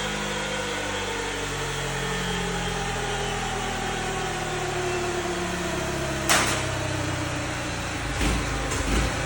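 Honda Tornado XR motorcycle's single-cylinder engine running with its pitch falling steadily as the bike slows down. A sharp click comes about six seconds in, and a few low thumps near the end.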